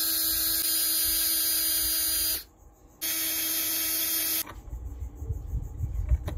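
Cordless drill spinning a bronze eye bolt at a steady speed while a flat file is held against its threaded shank, turning it down like a lathe. It runs for about two and a half seconds, stops briefly, then runs again for about a second and a half, followed by light clicks and knocks of handling.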